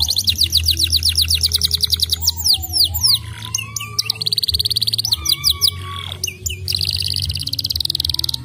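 Domestic canary singing: a run of fast rolling trills, each a rapid string of repeated high sweeping notes, switching to a new trill every second or two, with a few slower, lower gliding whistles mixed in.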